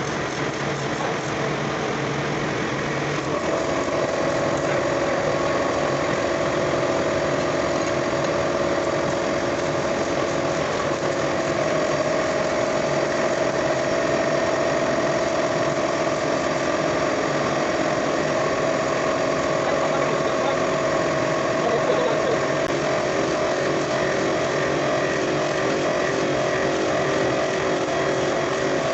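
A motor-driven machine running steadily, with a steady hum of several pitches over a rushing noise, after spinning up with a rising whine just before.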